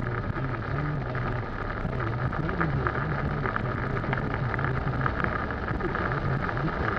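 Heavy rain hitting a moving car's windshield and roof in a dense patter, over the hiss of tyres on a soaked road and the car's low running drone.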